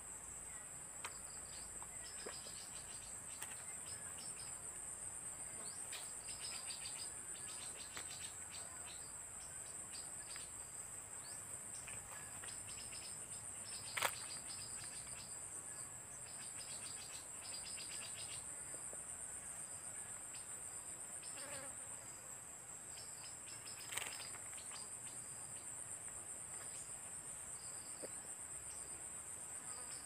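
Steady high-pitched chorus of forest insects, with a second stuttering trill that comes and goes. Two sharp clicks stand out, one about halfway through and one some ten seconds later.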